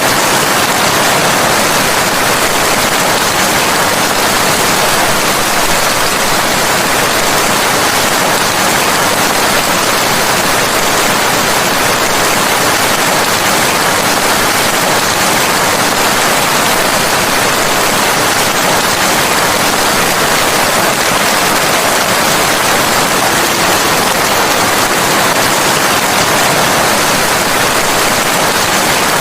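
Steady rain falling, a dense even hiss that keeps the same level throughout, with no thunder or single drops standing out.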